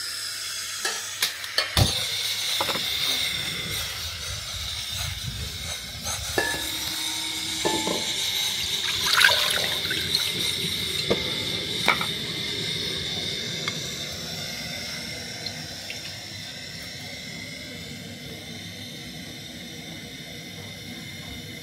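Hot coconut oil poured from a glass bowl into an aluminium pot on a gas burner, with a few sharp clinks of glass and metal over a steady hiss. The hiss softens in the second half.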